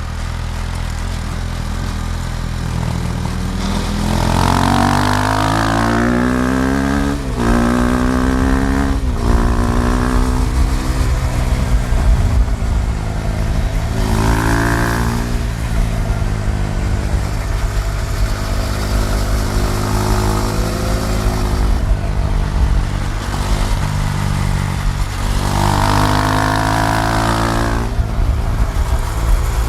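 KTM Duke 390's single-cylinder engine under riding load, the revs climbing several times with quick drops at gear changes about seven and nine seconds in, then rising again around fourteen and twenty-six seconds.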